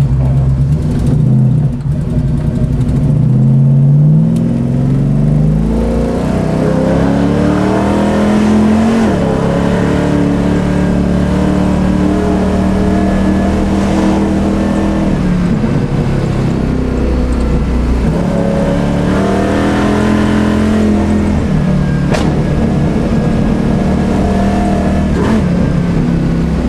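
Naturally aspirated GM 502 big-block V8 crate engine with an Alien intake and a performance cam, driving a 1970 Chevelle SS. Its note rises under acceleration over the first few seconds, drops about nine seconds in, runs fairly steady, and climbs again around twenty seconds in.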